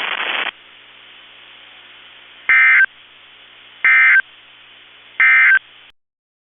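Three short, shrill digital data bursts about 1.3 seconds apart over a faint radio hiss: the EAS end-of-message code sent in SAME tones over NOAA Weather Radio, marking the end of the required weekly test.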